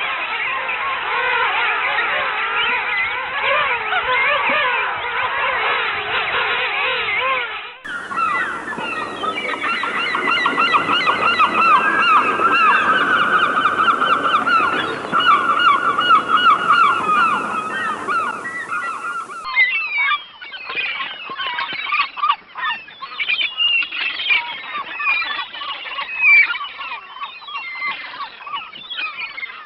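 A dense chorus of many birds calling, changing abruptly about eight seconds in and again near twenty seconds in: first a busy wavering chatter, then loud rapidly repeated calls, then quicker, sharper chirps.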